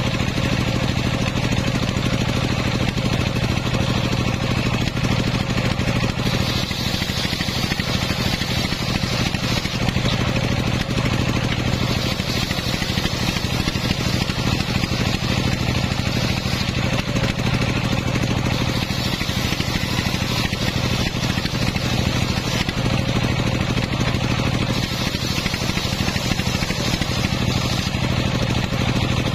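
Homemade table-mounted circular saw running steadily while its blade rips wooden planks lengthwise; the high cutting noise swells for several seconds at a time over the steady hum of the drive, pass after pass.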